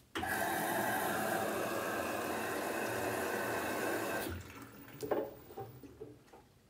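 LG 6 Motion direct-drive front-loading washing machine taking in water at the start of the wash. The inlet valve opens suddenly with a steady rush of water for about four seconds, then shuts off, followed by a few splashes and light knocks from the wet load in the drum.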